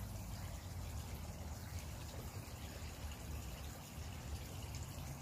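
Faint, steady trickle of running water from a garden pond, with a low rumble underneath.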